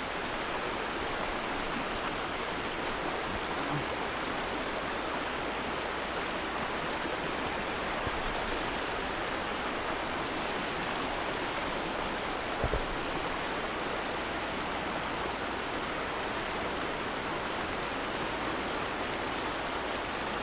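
Shallow rocky stream running over stones in small rapids, a steady rushing splash. A single brief thump about twelve and a half seconds in.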